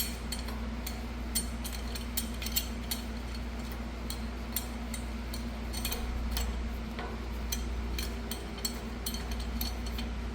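Scattered light metal clicks and clinks as a C-clamp is opened and set over an old brake pad against a brake caliper's piston, with a steady low hum underneath.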